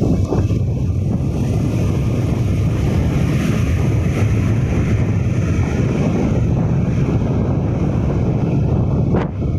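Steady rush of wind buffeting the microphone of a vehicle moving at road speed, with road and vehicle noise underneath; it drops briefly near the end.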